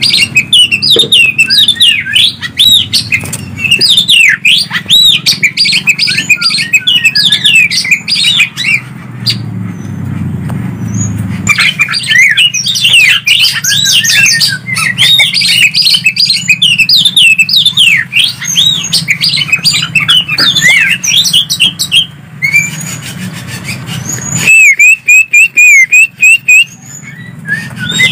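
Greater green leafbird (cucak ijo) and oriental magpie-robin (kacer) singing back and forth: a dense, fast stream of varied whistles and chirps over a steady low hum. The song thins out briefly about a third of the way in, and near the end comes a run of loud, evenly spaced repeated notes.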